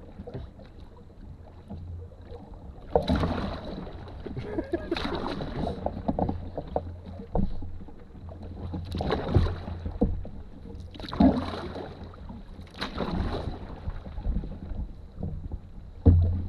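Canoe paddle strokes swishing and splashing in the river, about one every two seconds, over a low rumble and a faint steady high whine.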